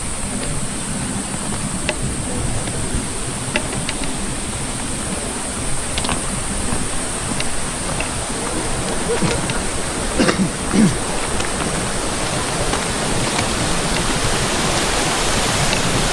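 Steady rushing noise with a few faint scattered clicks and a short gliding sound about ten seconds in.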